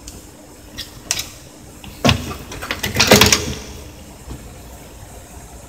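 Small hard plastic clicks and knocks as an inkjet printer ink cartridge and its parts are handled: a few light clicks, a sharper knock about two seconds in, and a quick cluster of louder clicks around three seconds in.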